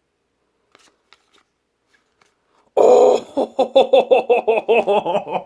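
A few faint clicks of a card pack being handled, then about three seconds in a loud, excited wordless cry from a man, pulsing rapidly several times a second, as he reacts to the card he has just pulled.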